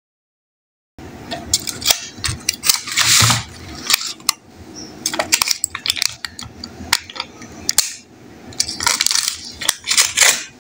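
After a second of silence, aluminium foil crinkles as a metal spoon pries the foil lids off clay kulfi pots, with sharp clinks and taps of the spoon against the pots and of the clay pots on a metal tray.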